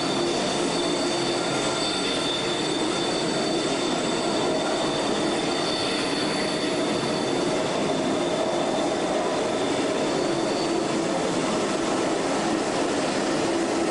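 Subway-style train cars running on rails: a steady rumble with a high wheel squeal that fades out a little before the end.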